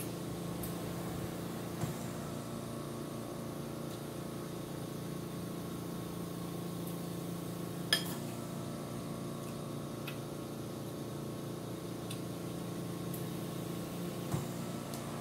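A metal fork clinks against a ceramic bowl three times, sharpest about eight seconds in, over a steady mechanical hum.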